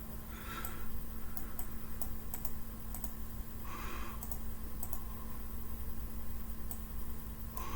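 Scattered sharp clicks of computer keyboard keys and mouse buttons, a dozen or so at uneven intervals, over a faint steady hum.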